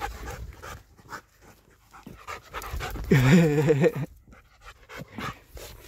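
Husky panting hard while pulling on its leash. About three seconds in there is a short, loud, wavering voiced sound.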